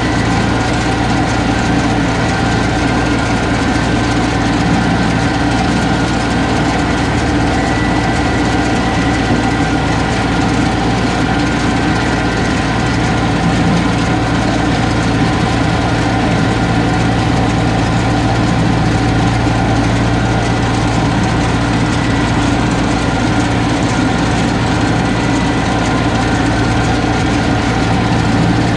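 Tractor engine running steadily under load, driving a round baler through its PTO shaft while it picks up hay: an even, constant hum with no change in speed.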